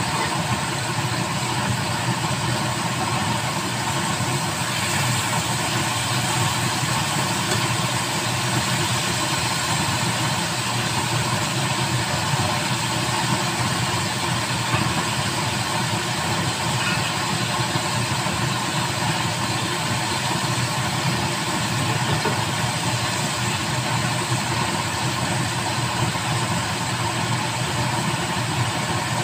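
Steady low roar of a gas stove's lit burners, even throughout with no breaks.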